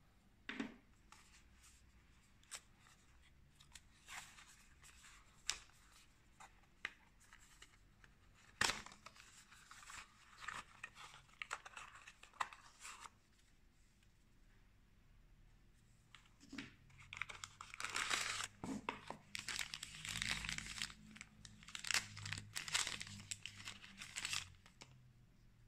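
Hands unpacking a cardboard smartwatch box: scattered taps and clicks of card against card, then stretches of paper and packaging rustling and crinkling, the longest and densest in the second half.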